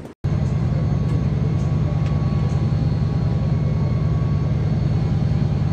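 Helicopter rotor: a steady, rapid low chopping that starts just after a momentary silence at the start.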